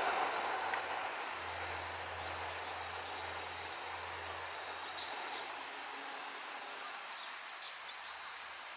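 Seibu 001 Series Laview electric train receding down the track, its running noise dying away over the first few seconds. Under it runs a steady high insect drone, with several short rising chirps.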